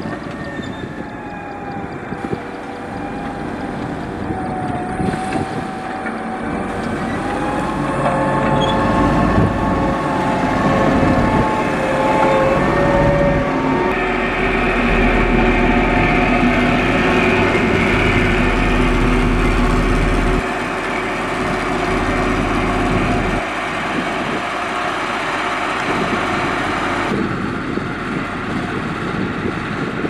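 Diesel engines of a motor grader and a single-drum road roller running under load, a steady heavy drone whose pitch shifts as the machines work. The sound changes abruptly several times.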